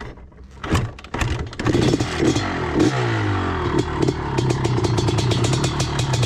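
Two-stroke race quad engine starting: it sputters about a second in, catches and revs, then settles into a steady, fast-pulsing idle.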